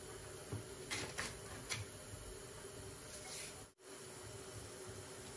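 Knife peeling stringy skin off rhubarb stalks and cutting them on a plastic chopping board: faint scraping with a few short, sharp scrapes.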